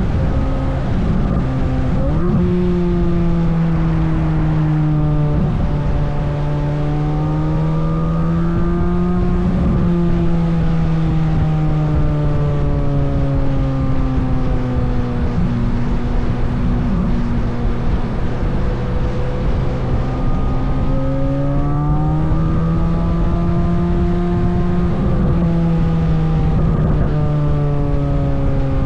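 Chevrolet Corvette C8 Z06's flat-plane-crank V8 on trailing throttle down a hill, the engine note sinking slowly as it braces against the descent. Its pitch jumps up sharply about two seconds in and again about two-thirds of the way through, then sinks again.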